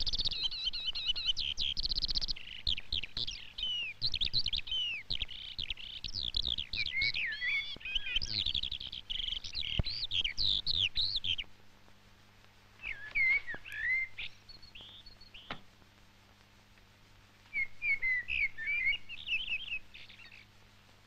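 Songbirds singing in a dense chorus of chirps and trills, which thins after about eleven seconds to a few short phrases, over a faint low steady hum.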